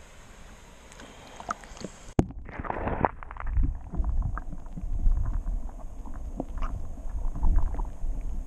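Action camera plunged into creek water about two seconds in: a sharp knock and a short splash, then muffled underwater sound, a low rumbling and gurgling with scattered small clicks and pops, as the camera is held under the surface.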